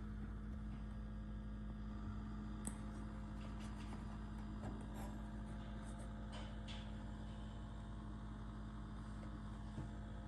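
Patton milkhouse space heater's electric fan motor running with a steady hum, with a few faint clicks.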